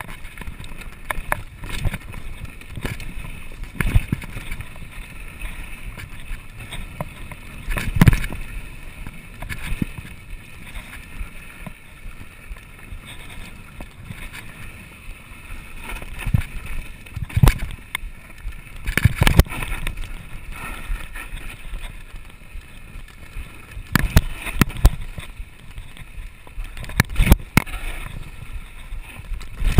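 Mountain bike riding fast down a rough, stony dirt trail: a constant rattle and rumble of tyres and frame, broken by repeated sharp knocks as the wheels strike rocks and bumps.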